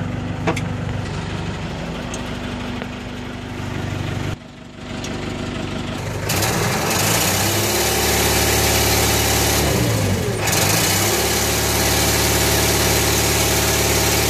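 Excavator's diesel engine idling, then getting louder about six seconds in and speeding up to a steady high rev. Its pitch dips briefly and recovers about ten seconds in.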